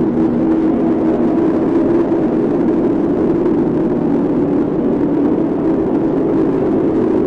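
Stomach growling: a loud, steady, unbroken low rumble with a droning hum running through it.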